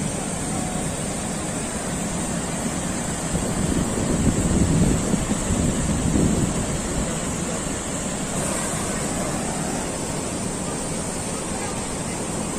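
Steady rush of a waterfall, with wind buffeting the microphone and growing louder in gusts from about four to seven seconds in.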